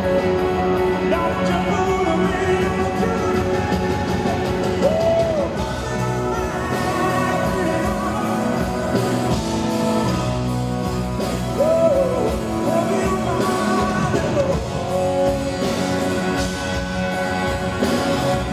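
Live rock band playing loudly: a male voice sings at first, then lead electric guitar lines with bent notes over drums and percussion.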